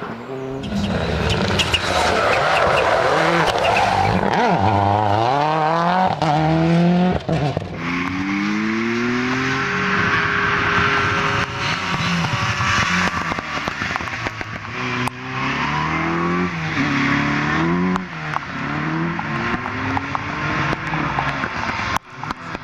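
Rally cars driven flat out on a stage, engines revving hard and rising in pitch, then dropping away at each gear change or lift, again and again, with tyre noise and some squeal over the engine.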